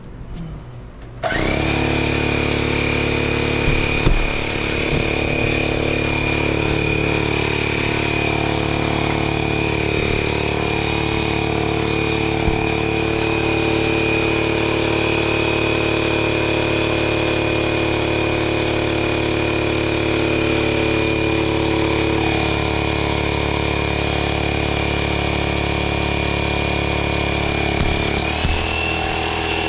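Air compressor motor kicks on about a second in and runs steadily, with a steady high whine over a deeper hum, while air goes into the mini bike tire; the whine rises slightly near the end.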